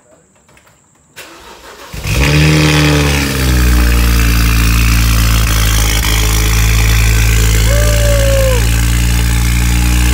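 A 2010 BMW 135i's turbocharged straight-six, fitted with aftermarket downpipes, cold-started: the starter cranks briefly about a second in, the engine catches about two seconds in with a rev flare that falls away, then it runs at a steady cold idle.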